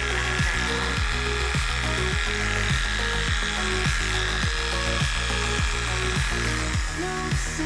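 Background music with a steady beat of about two a second. Underneath it, an electric pet clipper runs with a thin steady whine that stops near the end.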